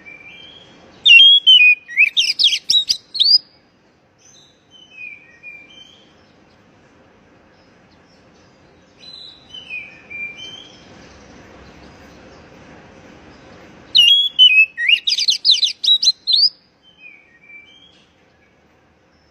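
Oriental magpie-robin (kacer) calling. Two loud bursts of rapid chattering, sweeping notes come about a second in and again near the end, with soft, falling whistled notes between them.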